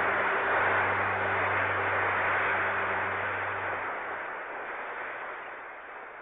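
Hiss and crackle of an old 1941 radio broadcast recording, with a low steady hum that drops out about two-thirds of the way through, the noise fading away toward the end.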